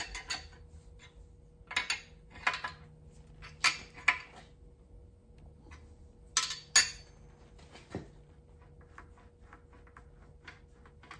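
Steel hand tools clinking on the cast-iron engine block and the portable valve seat cutter's hold-down bar as a wrench is set on the clamp nut, about seven sharp metallic clinks spread over the first seven seconds. Near the end comes a run of faint light ticks, with a faint steady hum underneath.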